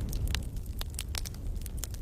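Wood fire burning: a steady low rumble of flames with irregular sharp crackles and pops from the burning wood, several a second.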